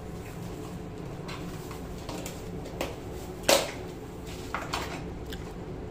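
A person chewing a crispy fried chicken burger close to the microphone: soft mouth and chewing noises with a few faint clicks, and one louder sudden noise about three and a half seconds in, over a steady low hum.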